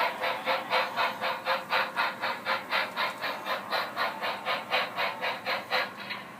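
Steam chuffing from the DCC sound decoder of an HO-scale 2-8-0 steam locomotive model, an even beat of about four to five exhaust chuffs a second that stops near the end.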